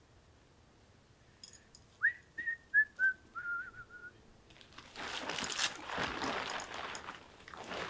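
A short whistled phrase of a few clear notes stepping down in pitch and ending in a warble, then several seconds of rustling from nylon tent fabric being pulled and leaf litter underfoot.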